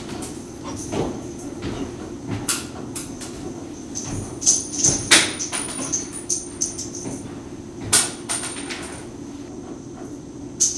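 Creaky old wooden staircase being danced on: irregular knocks and thuds on the steps, with high squeaky creaks between them, over a steady hum. The loudest knocks come about halfway through and again about three quarters of the way in.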